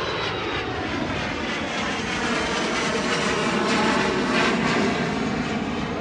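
Jet engines of a business jet climbing out after takeoff: a loud, steady rushing whine whose tone slowly shifts, swelling slightly about four seconds in.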